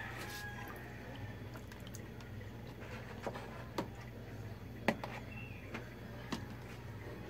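Faint water sounds from a wet hand lifted out of a plastic bowl of water, with a few short sharp drips; the loudest is about five seconds in.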